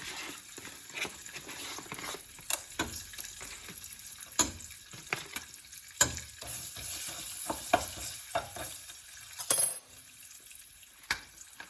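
Buttery microwave-popcorn kernels sizzling in very hot olive oil in a pan on the stovetop, with frequent sharp, irregular crackles and spits of oil, before the kernels begin to pop.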